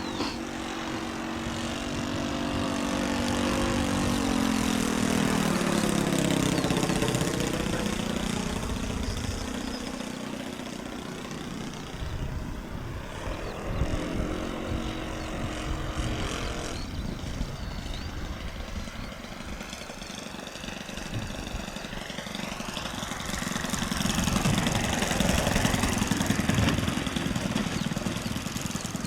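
Engine and propeller of a radio-controlled Seagull DH.60 Gipsy Moth model aircraft in flight. The buzzing engine note rises and falls in pitch and loudness as the plane makes passes, loudest about six seconds in and again near the end.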